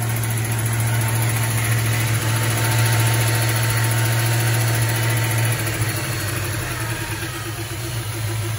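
1978 Plymouth Volare Super Coupe's V8 idling steadily, freshly revived after years of sitting, with a light lifter tick that the owner expects to go away once it warms up. It eases off a little in loudness over the last few seconds.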